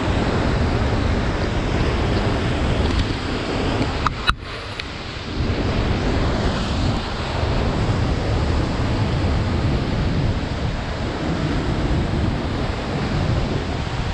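Waterfall rushing in a steady roar of falling water, with two sharp clicks about four seconds in.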